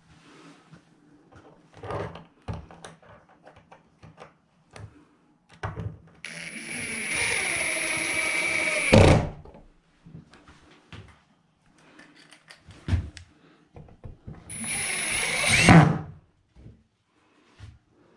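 Power drill running twice, once for about three seconds and again for about a second and a half, each run ending in a short, louder burst. Scattered knocks and clicks come between the runs.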